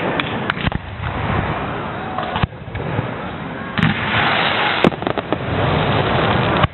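Fireworks display going off: dense crackling and fizzing with many sharp bangs, a hissing burst about four seconds in that ends in a loud bang.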